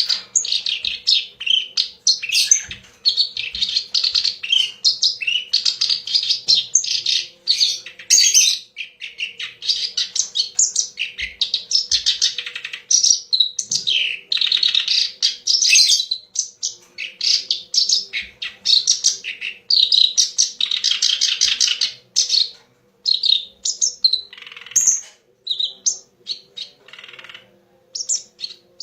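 Kerak basi (reed warbler) singing a long, loud run of rapid, chattering, varied phrases, broken by a few short pauses near the end. A faint steady hum runs underneath.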